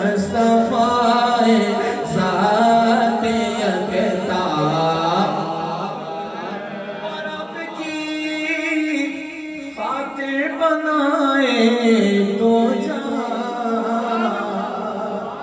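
A man singing an Urdu naat in long, drawn-out melodic phrases.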